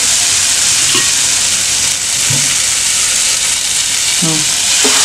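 Onion-tomato masala sizzling steadily in a nonstick frying pan, stirred with a wooden spatula.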